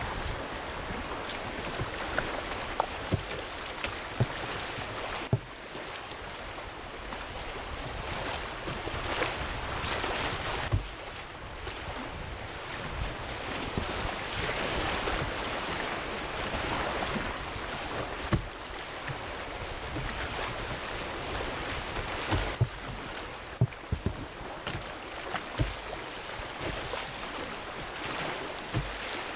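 Whitewater rushing and churning around a kayak running a rapid, a steady wash of noise with irregular sharp knocks of water slapping the hull or paddle strokes.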